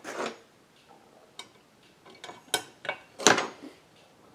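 Sharp metal clicks and knocks as a heated chainsaw crankcase half is handled on the bench and a main bearing is set into its seat, which it takes with effectively no resistance. The knocks are scattered, with a brief clatter at the start and a few stronger knocks near the end, the loudest about three seconds in.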